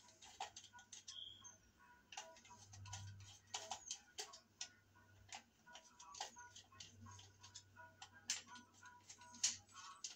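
Faint, irregular small clicks and taps of hands handling electrical wires and a 240-volt 30 amp dryer receptacle while sizing the wires for stripping, over a faint low hum.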